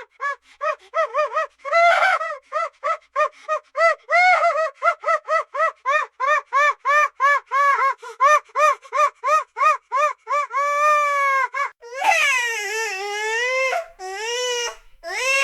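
Toddler crying: about ten seconds of quick, staccato sobbing cries at roughly four a second, then two long wails that dip and rise in pitch, then shorter cries near the end.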